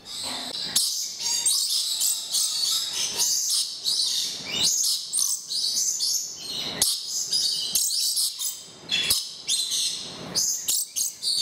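A flock of lorikeets calling with a constant stream of high-pitched chirps and squawks, some of them feeding from a bowl of nectar.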